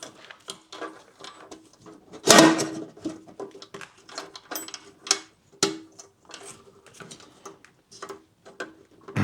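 Key and aluminium toolbox end cap being handled: a run of small metal clicks and scrapes, with one louder clank a little over two seconds in.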